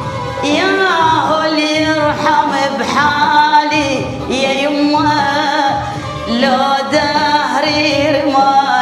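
Female voice singing a slow Iraqi song in long, ornamented phrases, the notes gliding and wavering, with short breaks between phrases.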